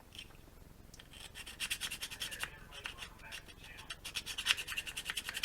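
A small flat needle file rasping in quick back-and-forth strokes along the edge of a plastic model kit part, scuffing off burrs and paint so the glue will bite. The strokes are faint at first and grow busier after about a second and a half.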